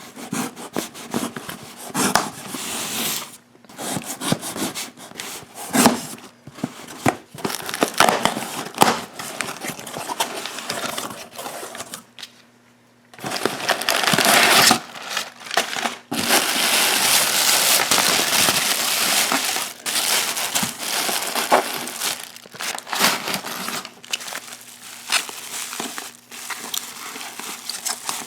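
Packing material being unwrapped and crumpled by hand: irregular crinkling and rustling with sharp crackles, with a longer stretch of continuous rustling about halfway through.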